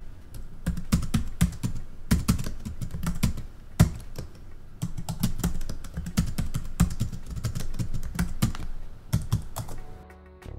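Typing sound effect: a long run of quick, uneven key clicks, stopping shortly before the end.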